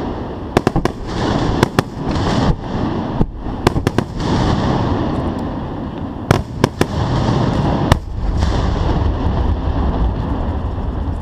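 Fireworks display heard at close range from the firing site: many sharp bangs of shells, some alone and some in quick clusters, over a dense continuous rush of noise that swells twice.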